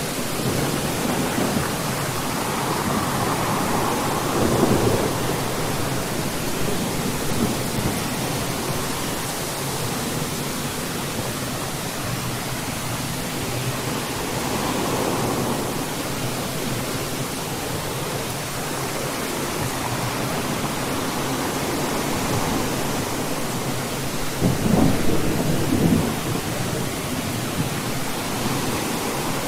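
Thunderstorm: steady rain hissing with rolls of thunder rumbling in several times, the loudest roll near the end.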